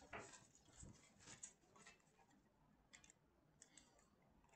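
Near silence with a few faint, short clicks of a computer mouse.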